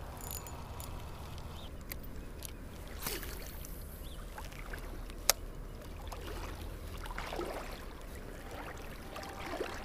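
River water lapping and trickling against a kayak, over a steady low rumble, with a few small ticks and one sharp click about halfway through.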